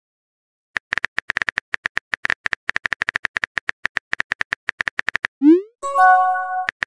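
Chat-app sound effects: a fast run of keyboard tap clicks, several a second, then about five and a half seconds in a short rising whoosh followed by a chime as the message is sent. The tap clicks start again just at the end.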